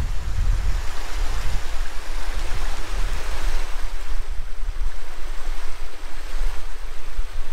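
Wind buffeting the microphone in uneven gusts, over the steady rush of a small creek.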